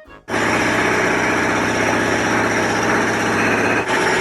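A motor engine running steadily with a rapid, even pulse. It starts abruptly a moment in and dips briefly near the end.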